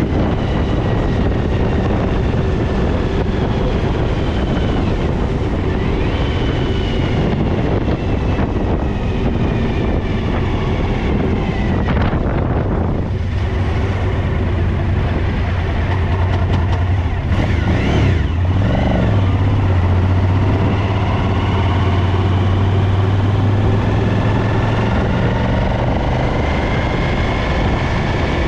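A vehicle running steadily: a constant low hum under a broad noise, with faint whine tones that slowly drift up and down in pitch.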